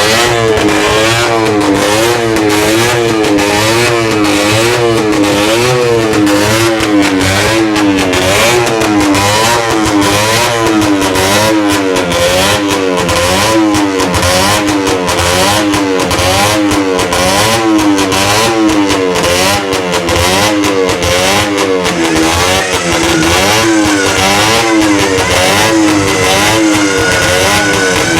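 Two early-1950s EMC 125 cc single-cylinder two-stroke racing motorcycles running together, loud, their engine note rising and falling about once a second as the throttles are blipped over and over.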